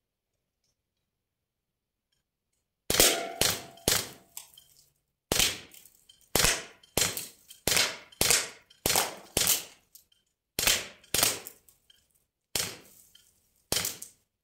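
CO2-powered BB gun firing about fifteen single shots at an uneven pace, starting about three seconds in. Each is a sharp crack with a short fading tail. The gun is being shot in the cold, when the CO2 capsules are struggling to keep up pressure.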